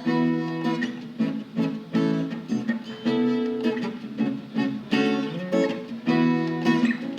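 Acoustic guitar strumming chords in a repeating rhythm, each strum ringing on before the next, with the chords changing several times.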